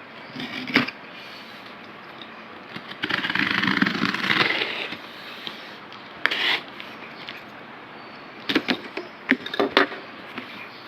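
Packaging being handled during an unboxing. There is a tap about a second in, about two seconds of rustling a little after that, a sharp click near the middle, and a quick run of clicks and taps near the end.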